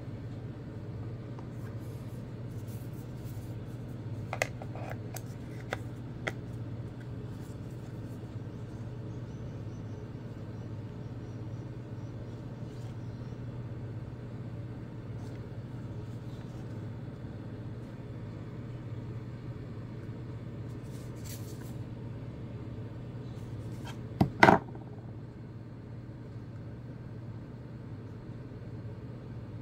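Hands handling a Nokia C10 phone and its accessories: a few light clicks and knocks, then a louder, sharp double click about three quarters of the way through, over a steady low hum.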